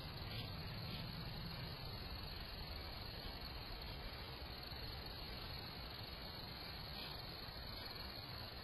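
Faint, steady night-time outdoor ambience: an even hiss with a continuous high-pitched chorus, with no distinct events.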